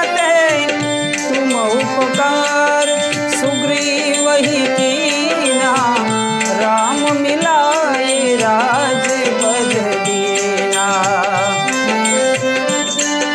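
Instrumental interlude of Indian devotional music: tabla playing a rhythm under held harmonium chords, with a gliding, ornamented melody line that bends and wavers over them.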